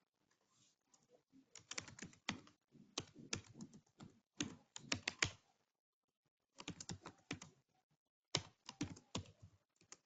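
Typing on a computer keyboard: three bursts of quick keystrokes with short pauses between them, the longest in the first half.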